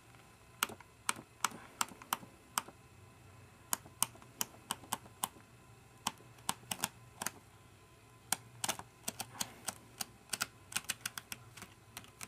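Sheets of an 8x8 ledger paper pad being flipped one after another, each page giving a short, sharp flick. The flicks come irregularly, a few a second, and grow more frequent after about eight seconds in.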